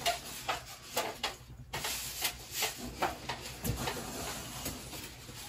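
Scattered light knocks, clicks and rustling of objects being handled and moved about.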